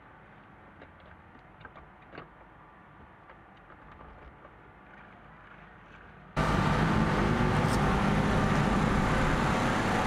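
Faint scattered clicks and light knocks as a race motorcycle's rear paddock stand and wheel are handled. About six seconds in, the sound jumps to a loud, steady engine drone.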